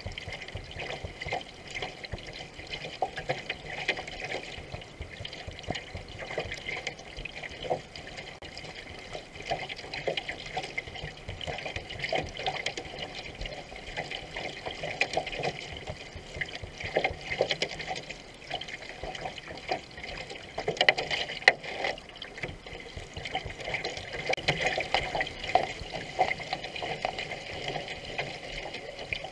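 Water rushing and splashing along the hull of a racing canoe paddled at speed, with the irregular splash of paddle strokes throughout.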